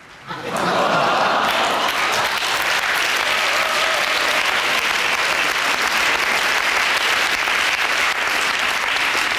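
Studio audience applauding after the host's joke. It starts about half a second in and keeps up steadily.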